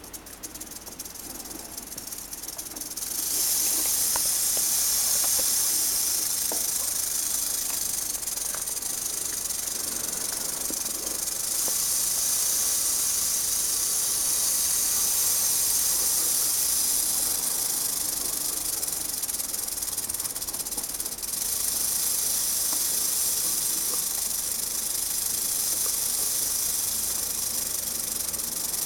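Western diamondback rattlesnake rattling its tail: a continuous high, hissing buzz that swells about three seconds in and holds, dipping briefly about two-thirds of the way through.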